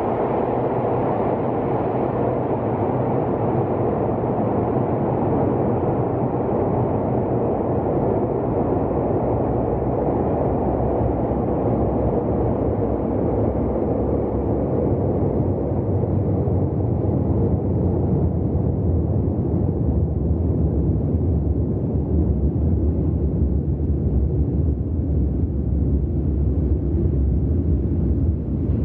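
Steady rumble of an electric train in the tunnel of an underground station. The sharper part of the sound slowly fades away, while the deep rumble holds on and grows a little stronger in the second half.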